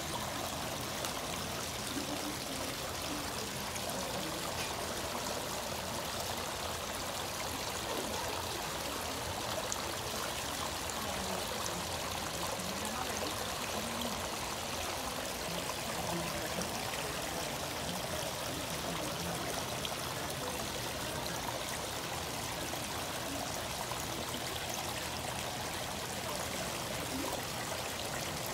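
Small rock waterfall spilling steadily into a koi pond, an even trickling flow of water.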